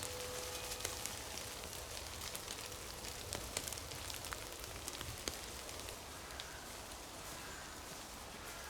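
Water drops pattering irregularly: many small, scattered ticks over a faint steady hiss.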